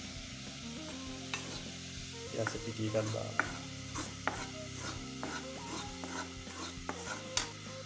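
Metal spoon stirring dry flour in a pan on the stove, with irregular scrapes and clicks of the spoon against the pan.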